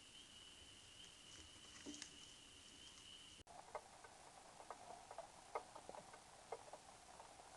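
Near silence: a faint steady high tone, then after an abrupt break about halfway through, a lower faint tone with scattered light ticks and patter.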